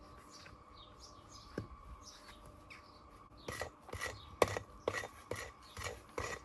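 Masonry tool work on stone and mortar: a run of short, sharp scrapes and knocks, about two a second, starting about halfway through. Faint bird chirps before it.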